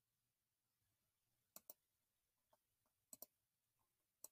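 Faint computer mouse clicks in near silence: three quick pairs of clicks, about a second and a half apart.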